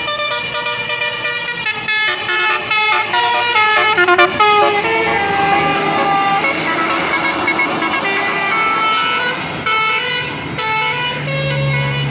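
Tour bus's Basuri telolet horn playing a fast melody of short notes that change pitch several times a second, moving on to longer held notes over the noise of the passing bus. A low engine drone swells near the end.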